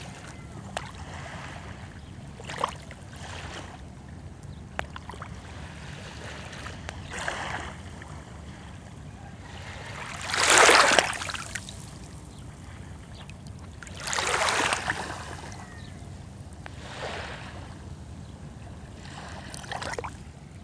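Small sea waves washing onto the shore over a steady low rumble, each wash a separate swell of hiss. The loudest comes about ten seconds in, with a second strong one around fourteen seconds and fainter ones between.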